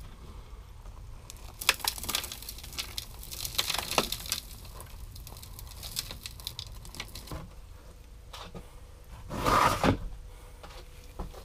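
Gravel and sand of paydirt rattling and scraping in a hand-shaken classifier screen over a pan: scattered small clicks of stones, then a louder burst of grinding gravel about nine and a half seconds in.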